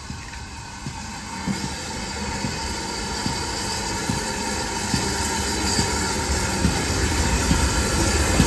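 GWR 4575 class 'Small Prairie' 2-6-2 tank locomotive No. 5526 approaching with its passenger train under steam, growing steadily louder as it draws near, with scattered sharp clicks over the running rumble.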